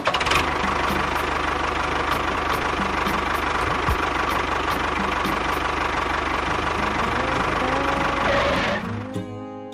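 A small engine runs steadily with a light, regular knocking tick. It cuts off about nine seconds in, and guitar music comes in.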